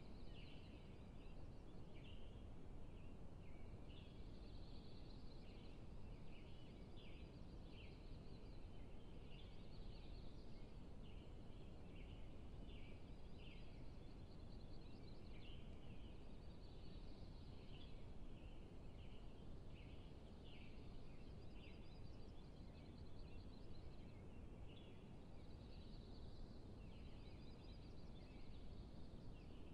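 Faint outdoor field ambience: many short high chirps overlapping without a break, over a low steady rumble.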